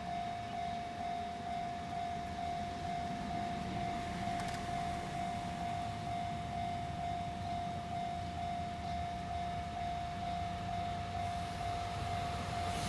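Japanese railroad crossing's electronic warning bell ringing its steady "kan-kan" tone, about two strikes a second, warning of an approaching train. Near the end a train's noise begins to build.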